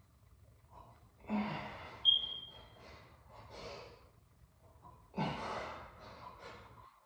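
A man breathing hard through a weightlifting set: two forceful exhales about four seconds apart, with softer breaths between. A brief high squeak sounds about two seconds in.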